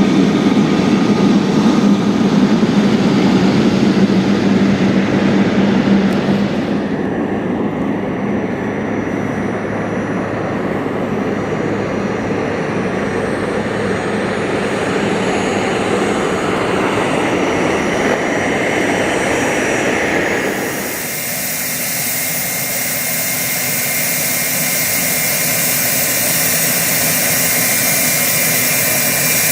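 Boeing 777F's twin GE90 jet engines running at taxi power, a steady rushing whine. The sound changes about seven seconds in and again about twenty-one seconds in, when the low rumble falls away and a higher hiss takes over.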